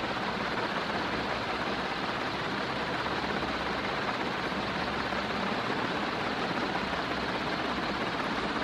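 Banvil Envirofan Silver Line 60-inch industrial ceiling fan with straight blades running, giving a steady rush of moving air.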